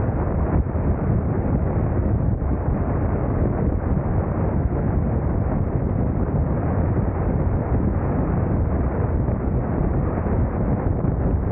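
Wind rushing over the camera microphone on a moving motorcycle: a steady low roar, mixed with the noise of the ride.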